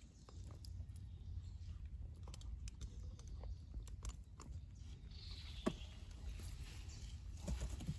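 Scattered small wet clicks and crackles from the mangrove mud around a crab burrow, irregular and close together, over a low steady rumble.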